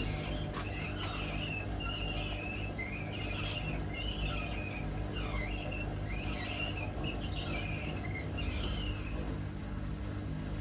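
Hotpoint WMA32 washing machine drum turning slowly over a steady motor hum, squeaking about once a second, until the squeaks stop near the end. The squeak is the drum rubbing against the bearing seal because the drum bearings are practically worn out.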